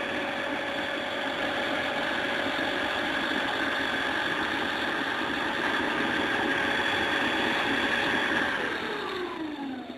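Small DC motor driving a belt-and-pulley homemade generator, running with a steady mechanical whine. About eight and a half seconds in the whine falls steadily in pitch as the rig spins down.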